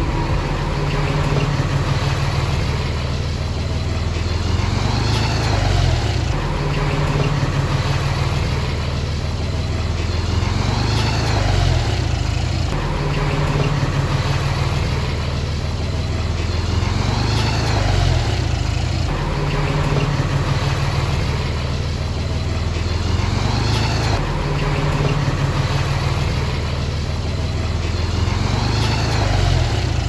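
Komatsu D31 bulldozer's diesel engine running under load as it pushes soil, its note rising and falling in a repeating cycle about every six seconds.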